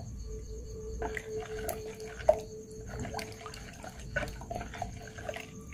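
Metal spoon stirring thin rice-flour and coconut-milk surabi batter in a plastic bowl: soft liquid swishing with light, irregular clicks of the spoon against the bowl.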